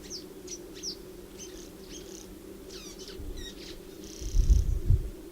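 Welcome swallows twittering: quick high chirps and short downward-sweeping notes, several a second, for the first three and a half seconds. About four seconds in, a low rumble lasting about a second is the loudest sound, with a brief hiss above it.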